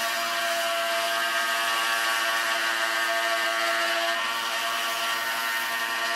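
Benchtop scroll saw running steadily, its reciprocating blade cutting through a printed circuit board: an even, buzzing hum with many pitched overtones and a hiss on top.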